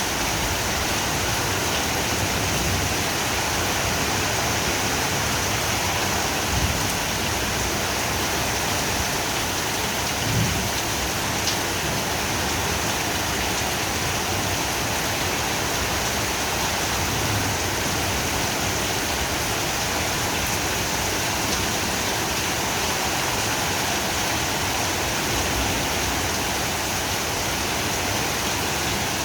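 Heavy torrential rain pouring down in a thunderstorm, a steady dense hiss, with a few brief low thumps.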